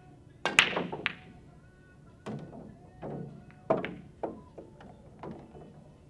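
Pool break shot. A sharp crack about half a second in as the cue ball smashes into the racked balls is followed by a quick scatter of balls clicking together. Over the next few seconds come several separate duller knocks as the balls strike the cushions and each other.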